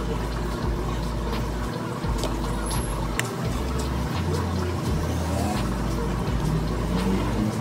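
A knife cutting a block of cheese into sticks on a paper plate, with a few sharp clicks, over a steady low rumble.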